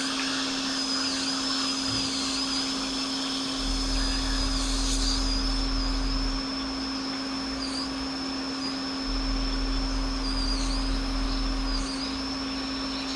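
Hot air rework station blowing steadily on an iPhone X logic board to desolder the U5600 touch IC. It is a continuous rushing hiss with a steady hum and a high fan whine that dips now and then.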